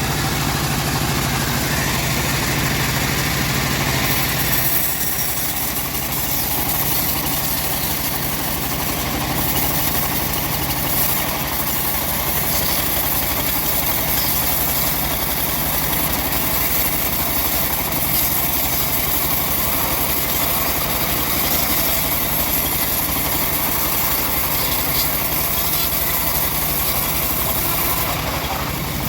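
Engine of a home-built bandsaw mill running steadily. About four and a half seconds in, its pitch drops and a high hiss comes up, and stays to the end: the blade coming under load in the log.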